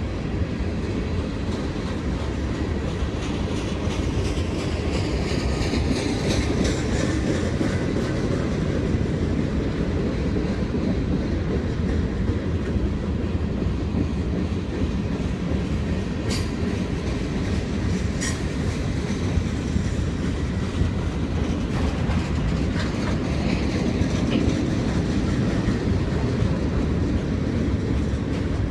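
A train rolling by on the rails: a steady rumble with the clickety-clack of wheels over rail joints, and two sharp clicks about two-thirds of the way through.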